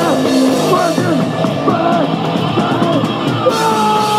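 Crust punk band playing live at full volume: heavily distorted guitars and bass with drums. About three and a half seconds in, a chord is held and rings out with long steady sustained tones as the song draws to its end.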